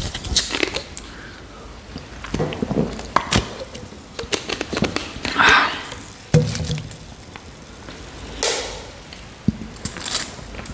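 A plastic Coca-Cola bottle being opened close to the microphone: the cap's seal cracking and clicking, with two short hisses of escaping fizz.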